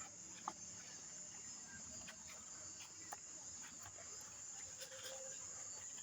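Crickets chirring steadily, faint and high-pitched, with a few scattered faint clicks.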